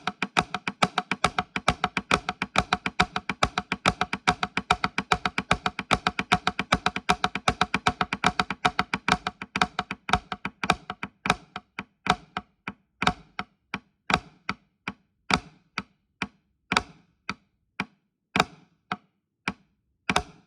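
Drumsticks playing the Swiss Army triplet rudiment, flams followed by right-left taps. A fast, even stream of strokes for about ten seconds, then slower, more widely spaced strokes that stop near the end.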